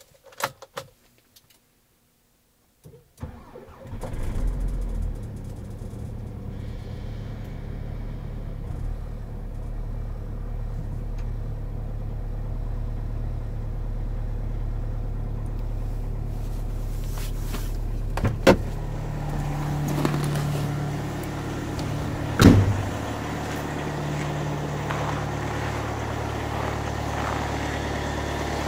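Volkswagen Crafter 2.0 TDI four-cylinder diesel cold-started at −28 °C: a few clicks, then after a short silence a brief crank, and the engine catches and settles into a steady idle. Two sharp knocks come later, and after the second one the engine note drops slightly.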